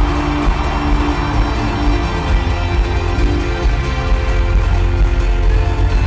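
A folk-rock band playing live in an arena, recorded from within the crowd. Banjo and acoustic guitar sound over a loud, steady wash of music with heavy, boomy bass.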